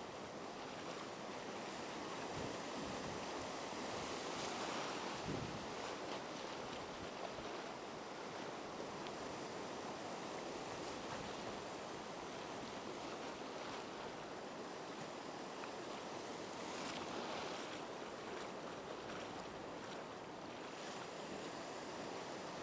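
Surf breaking and washing up the beach in a steady rush of water, swelling a couple of times, with some wind on the microphone.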